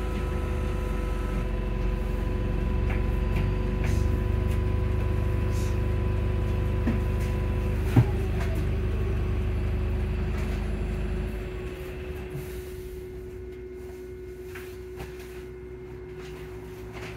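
Volvo hybrid bus heard from inside the passenger saloon: a heavy low engine rumble with a steady hum over it, a single sharp knock about eight seconds in, then the rumble stops about eleven seconds in, leaving only a steady hum.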